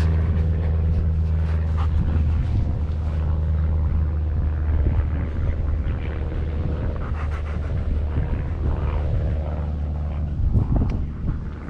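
An engine running at a steady speed, a low even drone with rumble, with scattered light knocks and rustles over it.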